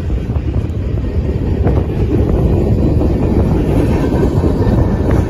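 Freight train of open-top gondola cars rolling past, steel wheels clattering on the rails over a steady low rumble.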